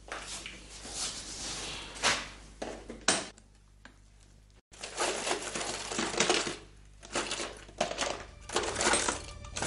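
Metal jewellery chains and necklaces clinking and rustling as they are handled in a jewellery box, with a few sharp clicks of the box lid.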